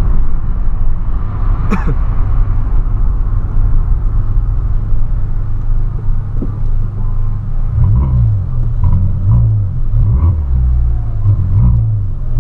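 Volkswagen Polo engine and exhaust heard from inside the cabin while driving, a loud deep rumble. There is one sharp crack about two seconds in. From about eight seconds in, the engine note rises and falls with the throttle.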